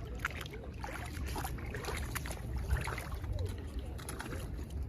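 Shallow seawater sloshing and trickling, with scattered clicks and knocks of stones and splashes, over a low steady rumble.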